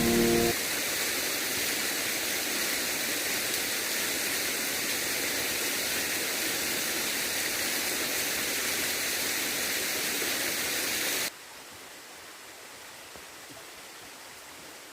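Waterfall rushing, a steady loud hiss of falling water, which cuts off suddenly about eleven seconds in and leaves only faint outdoor background.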